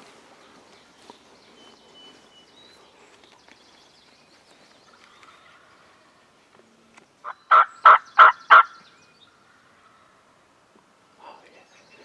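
Wild turkey gobbler gobbling once: a loud, rattling call of four or five quick pulses lasting just over a second, about seven seconds in.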